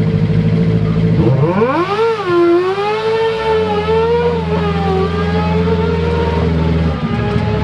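Racing microcar engine idling, then revved up over about a second and held at high revs with a wavering pitch, dropping back about seven seconds in.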